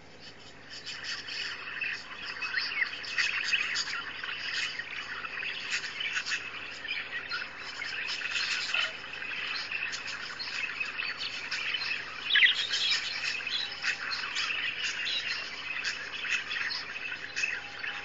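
Recording of a flock of wild budgerigars chattering, many quick overlapping chirps and warbles, played through computer speakers; it fades in over the first second or two.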